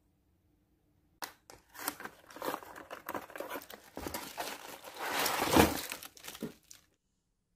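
Cardboard box being opened by hand and a tripod and its parts in plastic bags pulled out: a stretch of rustling, crinkling plastic and scraping cardboard with small knocks. It begins about a second in, grows loudest about five seconds in, and cuts off abruptly near the end.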